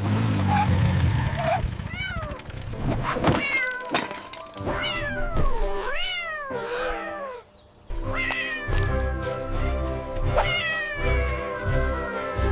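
A cat meowing several times, each meow rising and then falling in pitch. About eight seconds in, music with a steady beat starts, and a couple more meows sound over it.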